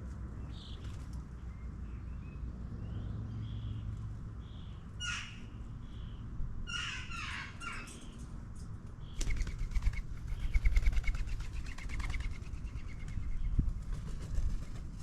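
Garden birds calling: short chirps, then sharp falling calls about five and seven seconds in. From about nine seconds, rapid fluttering wing beats close by, over a steady low background rumble.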